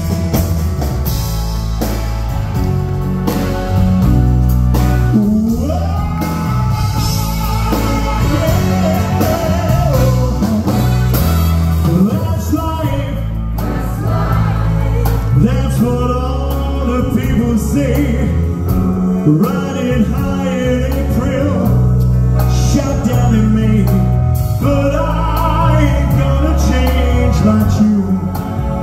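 A male lead singer performing live with a full band: drums, bass, guitars, keyboards and horns. The band plays alone for about the first five seconds, then the voice comes in over it.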